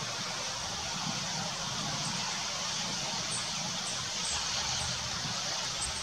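Steady outdoor background noise: an even hiss over a low rumble, with a few faint high ticks in the second half.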